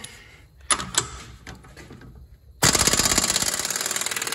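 Impact wrench hammering in a rapid, loud rattle from about two and a half seconds in, undoing the rear hub nut of a Fiat Grande Punto's drum-brake hub. A few light knocks come before it as the socket is fitted.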